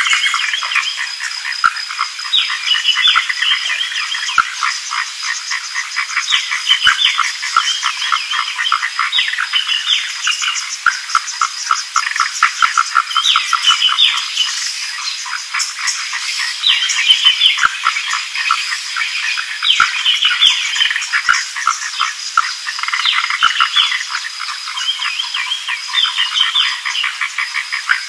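A chorus of frogs calling: rapid rattling pulse trains repeating over and over, with short higher chirps among them.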